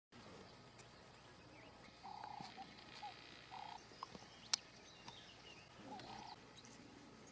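Near silence, broken by a few faint short animal calls about two, three and a half and six seconds in, and a single faint click a little past four and a half seconds.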